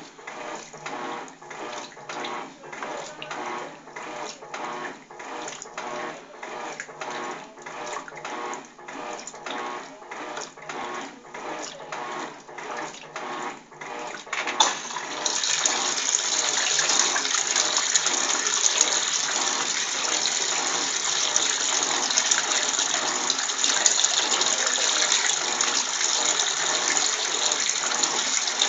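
Electrolux TOP6F top-loading washing machine agitating, the agitator swishing the wash back and forth about twice a second. About halfway through, this gives way to a loud steady gush of water running into the drum as it fills.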